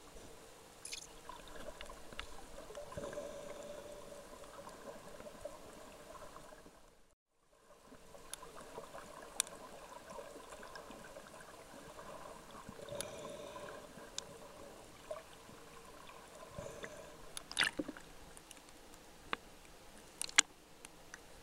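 Muffled underwater water noise picked up through a compact camera's waterproof housing, with scattered faint clicks and crackles. The sound drops out briefly about seven seconds in, and a few sharp clicks or splashes come near the end as the camera reaches the surface.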